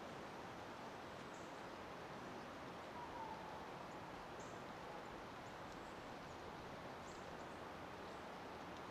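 Steady outdoor background hiss, with one faint short whistle about three seconds in and faint high chirps every second or two.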